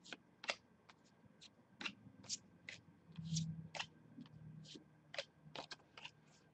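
Trading cards being flicked through one at a time, a short sharp click or snap about twice a second, with a brief low hum about three seconds in.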